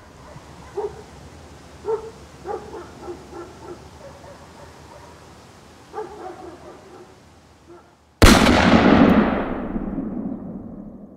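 A dog barking faintly several times over a steady background hiss, then about eight seconds in a sudden loud boom that dies away over some three seconds.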